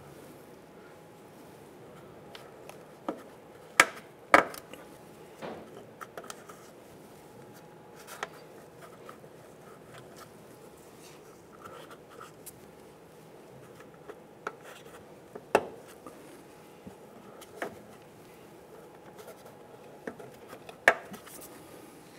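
Plastic push-pin retainer clips being pressed into a plastic splash-shield cover, each seating with a sharp snap: four loud snaps (two close together about four seconds in, one around the middle, one near the end) among lighter taps and rubbing of gloved hands on the plastic.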